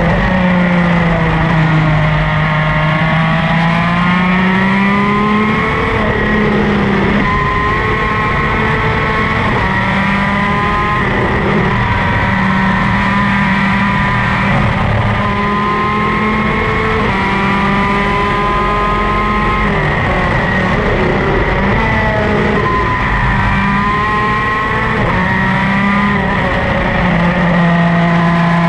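Two-stroke superkart engine at racing speed, heard from on board. Its pitch climbs repeatedly through the revs and then drops back at shifts and braking, over a constant rush of noise.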